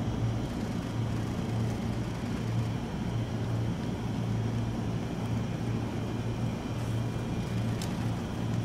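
A stationary JR 205 series electric train with its onboard equipment running, giving a steady low hum that pulses gently. A few faint clicks come near the end.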